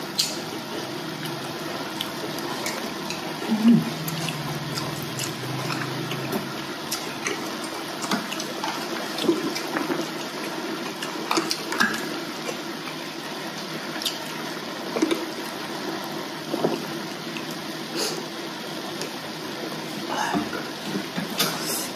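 Close-miked eating sounds at a hotpot: wet chewing and slurping of broth-soaked food, with scattered short clicks of chopsticks.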